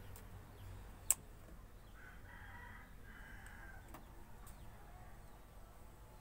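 A rooster crows once in the background, about two seconds in, for under two seconds. A single sharp click about a second in is the loudest sound.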